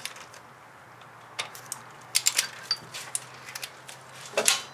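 A click-type torque wrench on a cylinder head bolt: scattered sharp ratchet clicks with a louder metal clack near the end. The bolts are being tightened to 37 foot-pounds.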